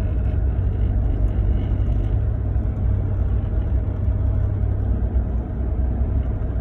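Steady low rumble inside the cab of a 2019 Ram 1500 pickup, with a little vibration from around the centre of the dash that the owner hears but cannot explain.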